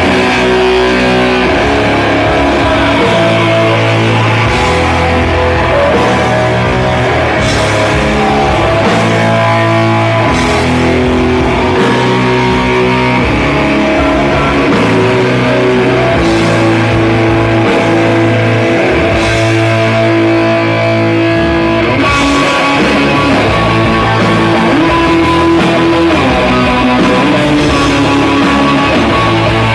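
Live rock band playing, with guitar to the fore over a sustained bass line and drums, and cymbal crashes every few seconds.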